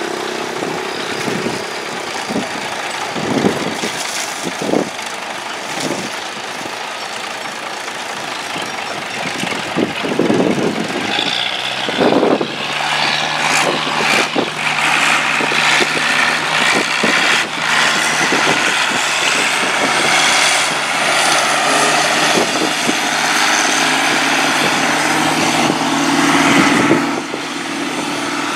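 Large inline truck engine of a long-tail boat running, with scattered knocks through the first dozen seconds. About twelve seconds in it settles into a louder, steadier drone as it drives the long-tail propeller shaft and the boat gets under way at speed.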